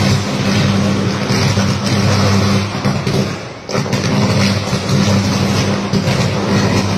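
Electrical short circuit arcing at a burning cable: a loud, steady buzzing roar with a low hum. It fades briefly about halfway through, then comes back abruptly.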